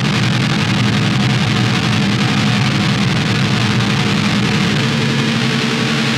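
DIY Devil's Triangle drone synth played through homemade effects pedals: a loud, dense, noisy drone over steady low tones, held without a break while the knobs are worked.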